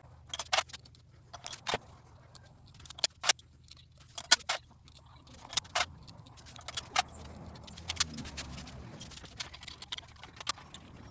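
Steel cylinder-head bolts with washers being dropped into their holes in an engine head and started by hand: a string of short, sharp metallic clinks and clicks at irregular intervals.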